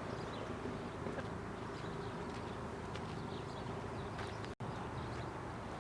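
Steady low buzzing hum, with faint short chirps above it. It cuts out completely for an instant about four and a half seconds in.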